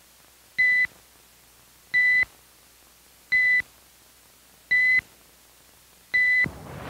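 Electronic beep tone sounding five times, short and evenly spaced about a second and a half apart, each a single steady high pitch: a timing signal while the shoot-or-don't-shoot decision card is shown.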